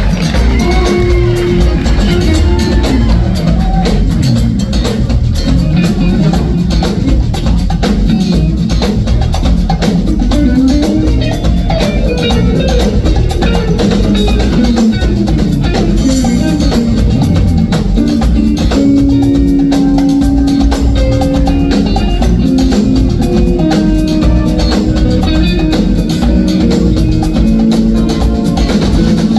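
Live band music from a horn band: drum kit keeping a steady beat under pitched instruments, with long held notes in the second half.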